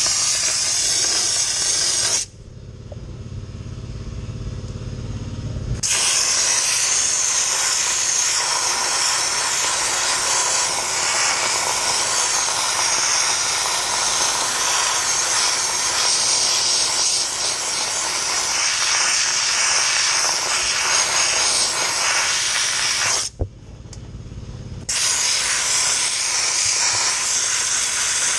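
Dry ice blasting gun spraying a loud, steady hiss of compressed air and dry ice against a car's underside to clean off grime. The blast stops twice, about two seconds in and again near the end, for a few seconds each, leaving only a low rumble.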